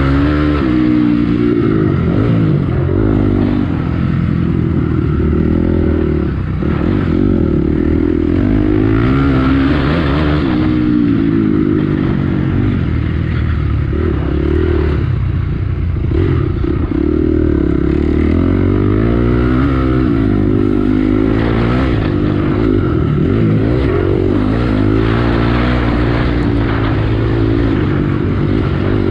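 Honda CRF250X's single-cylinder four-stroke engine being ridden hard, revving up and dropping back again and again as the rider accelerates and shifts along the track.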